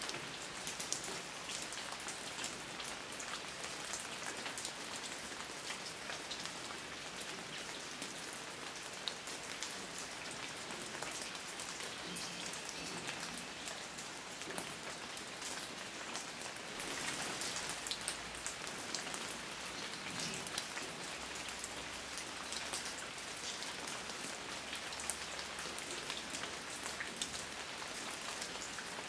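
Steady rain falling, a dense patter of drops on a hard surface, swelling slightly about halfway through.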